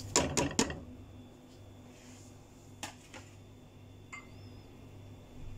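A few quick taps and clatters in the first second as whole spices, onion and ginger-garlic are tipped from a plate into a pressure cooker pot. After that the kitchen is quiet apart from a low steady hum and a couple of faint single clicks.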